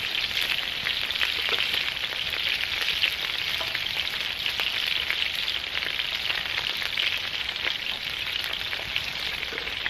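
Steak frying in hot oil on a Petromax fs56 griddle over a campfire: a steady sizzle with fine crackles of spitting oil.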